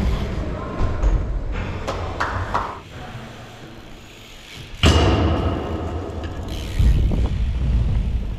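BMX bike riding on a concrete skatepark floor, its tyres rolling with scattered knocks. About five seconds in, a loud landing impact leaves a brief metallic ring, and a couple of seconds later come further thuds.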